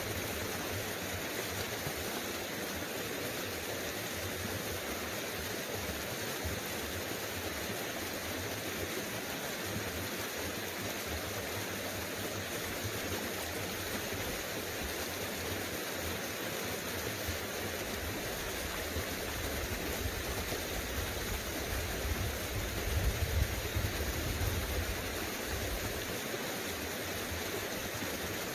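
Small creek's water running steadily, a rushing hiss. About twenty seconds in, a low rumble rises for several seconds, then drops away.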